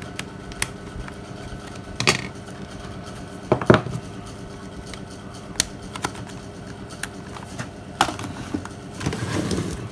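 Light plastic clicks and taps from handling a Nokia E63 mobile phone as its plastic back cover is unclipped and lifted off. The clicks are scattered, the loudest a little over three and a half seconds in, over a steady faint hum.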